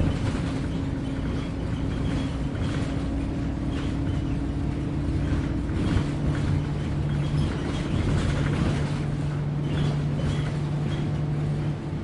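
A city bus on the move, heard from on board: the engine drones steadily under the road noise, and its tone drops to a lower pitch about halfway through. Frequent short knocks and rattles come through as the bus rides over a bumpy road.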